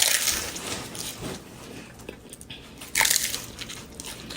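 Close-up eating sounds of a person biting into and chewing a taco, with two loud bites, one at the start and one about three seconds in, and quieter chewing between.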